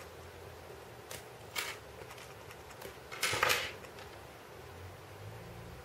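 Hard plastic LEGO Technic pieces clicking and clattering as they are handled and pulled apart: two short clicks, then a longer rattle of parts about three seconds in.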